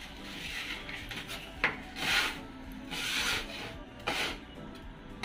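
Two steel putty knives scraping and rubbing across a plywood board, mixing dry plaster of Paris and wall putty powder together. The scrapes come as a series of rasping strokes about once a second, with a sharp click about a second and a half in.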